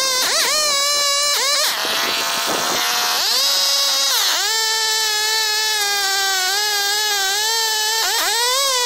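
1970s McCulloch Pro Mac 10-10 54 cc two-stroke chainsaw running at full throttle while ripping lengthwise through a big log, sped up so the engine sounds high-pitched. Its pitch sags under the cut and climbs back, most deeply from about two to four seconds in and again briefly near the end.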